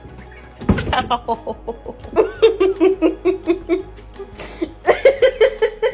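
A person laughing in two runs of quick, rhythmic bursts, the first stepping down in pitch, after a sudden low thump about half a second in.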